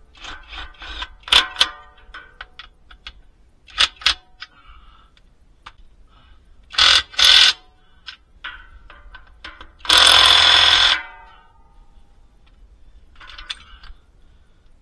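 Cordless impact wrench running bolts down: two short bursts about seven seconds in and one longer, loud ringing burst about ten seconds in, with clinks of metal tools and sockets in between.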